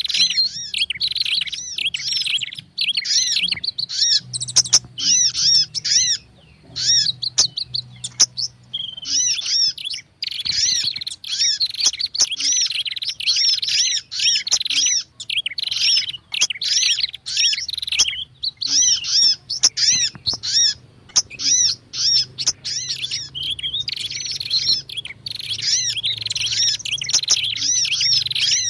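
Bird-lure recording of prinias and sunbirds calling together: rapid, high chirps that arch up and down, packed densely and repeating with only brief gaps.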